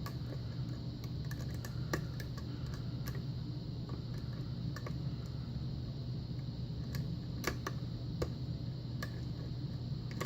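Small, irregular metallic clicks and ticks of a lock pick working the pin stack of an old six-pin Russwin pin-tumbler lock under tension: single-pin picking, with pins lifting, clicking and dropping. A few clicks near the end are louder. A steady low hum runs underneath.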